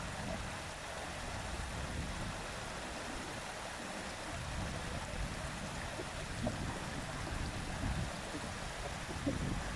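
Flowing water rushing steadily, with a low, uneven rumble underneath.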